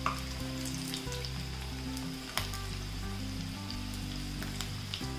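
Palak pakodas (spinach and gram-flour fritters) sizzling as they deep-fry in hot oil on a low flame, the second side browning after being turned. Two sharp clicks cut through the sizzle, one right at the start and one about two and a half seconds in.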